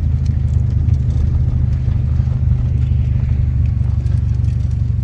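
Steady low rumble of wind and road noise from a mobility scooter riding along, with small clicks and rattles scattered through it.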